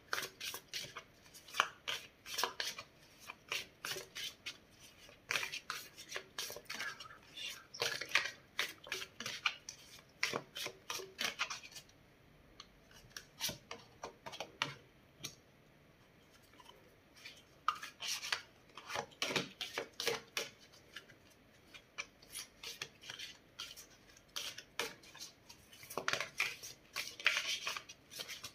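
Tarot cards being shuffled by hand: a dense run of crisp flicks and rustles for about twelve seconds, a quiet pause of several seconds, then shorter bursts of shuffling.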